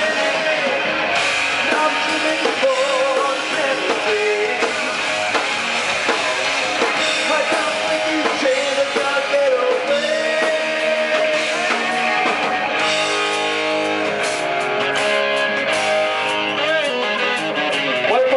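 Rock band playing: guitars and a drum kit, with singing.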